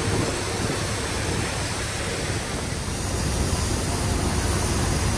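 Steady rushing cabin noise of an Airbus A330 airliner in flight, from its jet engines and the airflow, growing slightly louder about halfway through.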